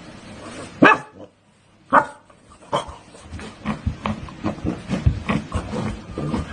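A puppy barking: two sharp barks about a second apart, then a quicker string of softer yips and small barks.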